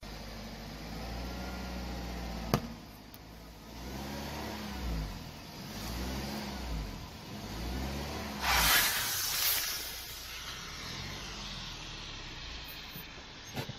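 A car engine running, its pitch rising and falling as the car rolls onto an aerosol can of party snow spray. A little past the middle, the can bursts under the tyre with a loud hiss of escaping spray lasting about a second and a half.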